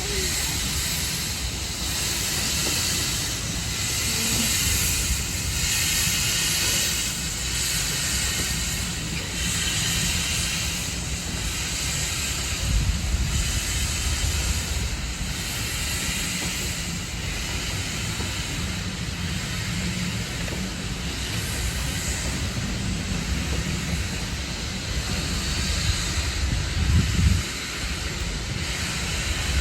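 Steam locomotive hissing steam, the hiss swelling and fading about once a second over a low rumble.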